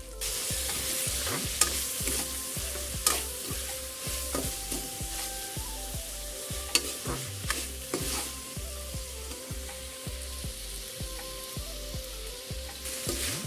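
Ginger, garlic and chilli paste sizzling as it is stirred into frying chicken in a steel wok, with a steady hiss and several sharp clicks of a steel ladle against the pan.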